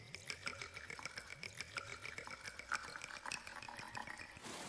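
Red wine poured from a bottle into a glass: a quick, irregular patter of small clicks and short pings at several pitches, the ringing of bubbles forming in the liquid. It stops shortly before the end.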